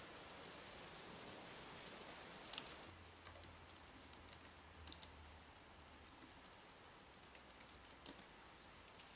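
Typing on a laptop keyboard: irregular key clicks start about two and a half seconds in, the first one the loudest, and stop near the end, over a faint hiss.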